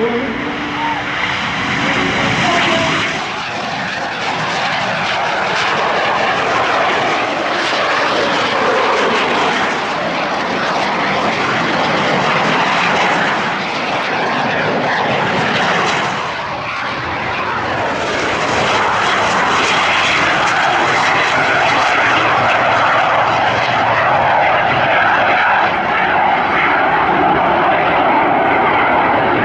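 Loud aircraft engine noise, dipping briefly about halfway through and then building again.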